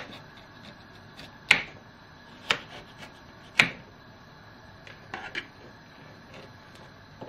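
Kitchen knife chopping peeled carrots on a plastic cutting board: four sharp knocks of the blade hitting the board, about a second apart, with a few lighter taps between them and again about five seconds in.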